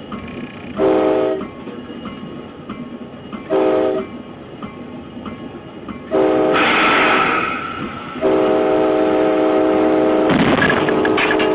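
Locomotive air horn sounding four blasts, two short then two long, over the rumble of a moving train. A harsh burst of noise comes under the third blast and again under the last.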